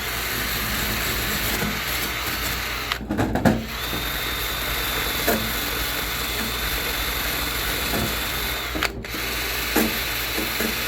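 Handheld electric drill running steadily, with two short stops about three seconds in and near the end, then starting again each time.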